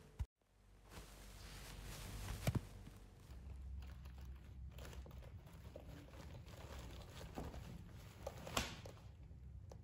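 Faint rustling and shuffling of clothing against a tiled floor as hands grip a person lying there, with two sharp clicks, about two and a half seconds in and again near the end.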